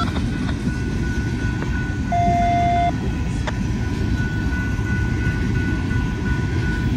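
Steel coal gondolas of a long freight train rolling past on the rails, a steady rumble and clatter of wheels with a faint high squeal running through it. A short electronic beep sounds about two seconds in.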